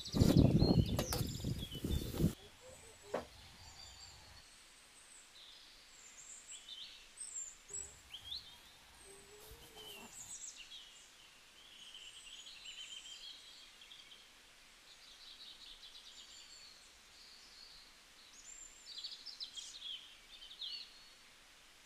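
Small birds chirping and singing in short snatches throughout. They follow about two seconds of loud noise at the start that cuts off suddenly.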